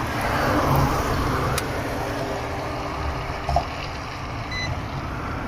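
Road traffic going by: a steady rumble of passing vehicles and tyre noise.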